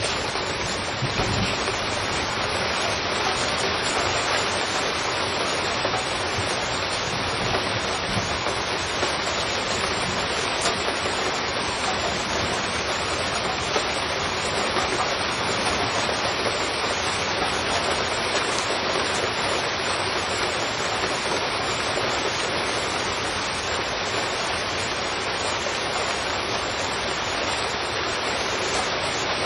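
Heavy rain falling steadily on a street, an even, unbroken hiss.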